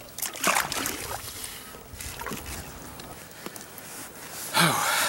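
Water splashing and sloshing at the side of a jet ski, with two louder splashes, one about half a second in and one near the end.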